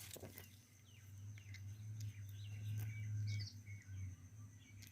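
Small birds chirping and trilling in short calls, over a low hum that swells in the middle and drops away about three and a half seconds in.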